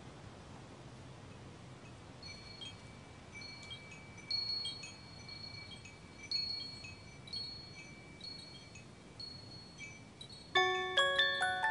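Sparse, high chime tinkles over a faint steady hiss, starting about two seconds in. Near the end a louder, bright mallet-percussion melody like a glockenspiel comes in, the start of the film's music score.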